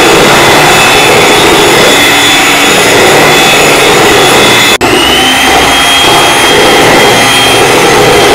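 Electric hand mixer running at speed, its beaters whisking butter cake batter in a metal bowl: a loud, steady motor whine. A bit past halfway it breaks off for an instant and comes back with a slightly higher whine.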